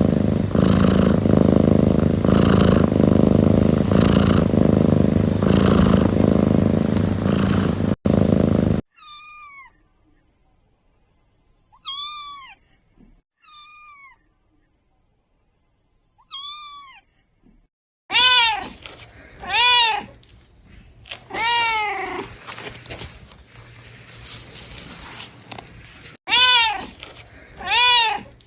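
A cat purring loudly close up, with a steady pulse about once a second. It is followed by a kitten's four faint, short meows, each falling in pitch, and then a kitten meowing loudly over and over, about one falling meow every one to two seconds.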